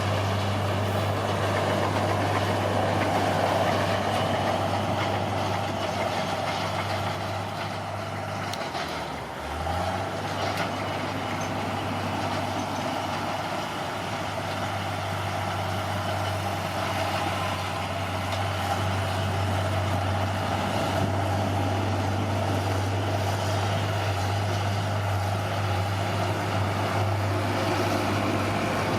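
Bulldozer's diesel engine running steadily under work. Its note dips and shifts briefly about nine seconds in, then steadies again.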